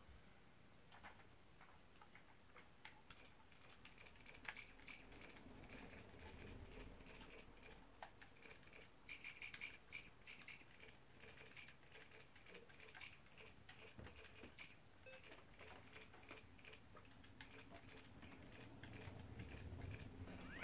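Near silence with faint, scattered clicks and taps of small plastic baby toys being handled.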